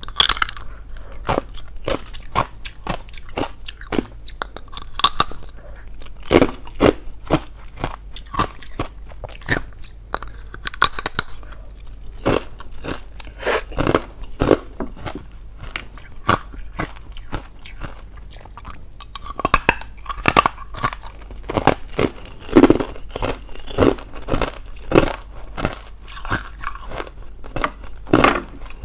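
Hollow, thin-walled ice being bitten and chewed: a run of crisp, irregular crunches and cracks, with a few quicker clusters of crackling.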